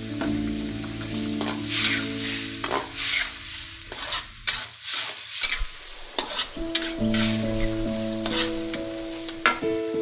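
Spatula stirring food in a sizzling pan, in a run of repeated scraping strokes.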